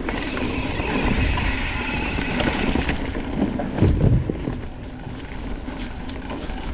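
Mountain bike rolling along a sandy dirt trail: tyre noise with rattling clicks from the bike, and a heavy low thump about four seconds in.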